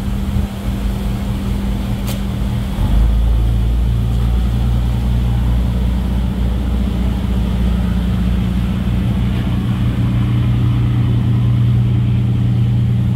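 Steady low drone of ship engines, with a brief click about two seconds in. The drone gets louder about three seconds in and then holds steady.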